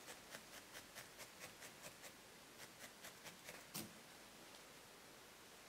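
Felting needle stabbing repeatedly into wool, faint soft ticks at about five a second, thinning out after a couple of seconds. A single louder knock just before the four-second mark as the needle tool is set down on the work surface.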